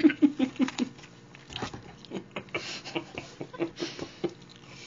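A woman laughing in short breathy pulses for about a second, then close-up eating sounds: chewing, small mouth clicks and lip smacks, with a sip from a soda can near the end.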